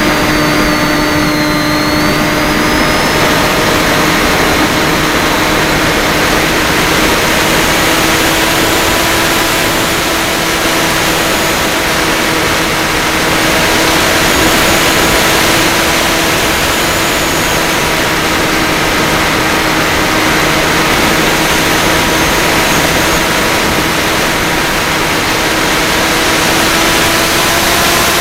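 Electric motor and pusher propeller of a Bixler 3 RC plane running steadily, a constant whine with a rush of wind noise. The pitch edges up a little near the end.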